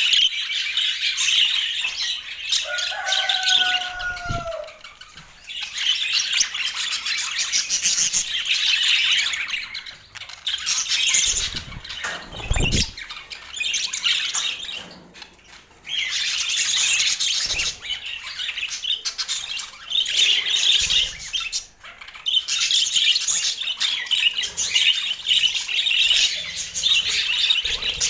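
Budgerigars chattering and warbling in rapid, scratchy bouts of a few seconds with short pauses between, with one lower slurred call early on.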